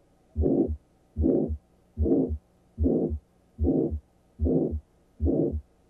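Carotid bruit heard through a stethoscope bell on the neck: a whooshing, murmur-like sound with each heartbeat, about seven beats evenly spaced, each whoosh framed by a low thump at its start and end. Such a bruit suggests narrowing of the carotid artery.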